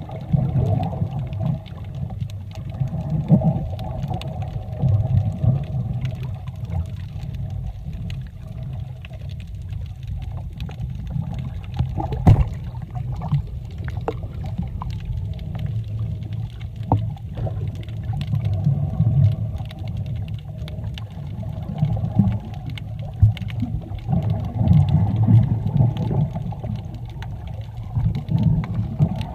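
Sea water heard underwater while snorkelling: a muffled, swelling rumble of moving water with scattered sharp clicks and pops.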